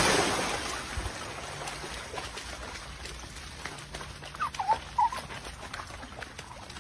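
Muddy runoff water rushing and splashing, loud at first and fading over the first second into a steady watery hiss with faint splashes as a dog paws in the stream. About four and a half and five seconds in come two short high squeaks.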